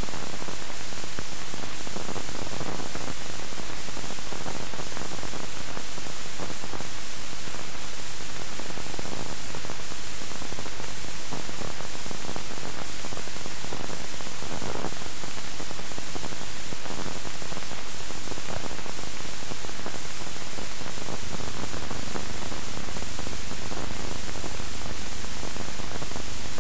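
Steady hiss and static from an old film soundtrack, with no other sound standing out.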